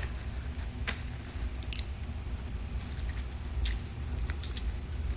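Close-up chewing and mouth sounds of someone eating lobster: scattered, irregular short clicks and smacks over a steady low hum.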